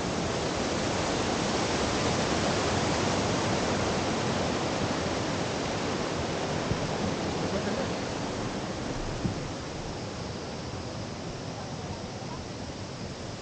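Steady rush of flowing river water, a little fainter from about nine and a half seconds in.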